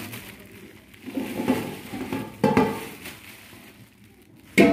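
Plastic wrapping crinkling as stainless steel chafing-dish bowls are handled. There is a metallic clink about halfway through, and a louder clang of steel on steel near the end; both ring briefly.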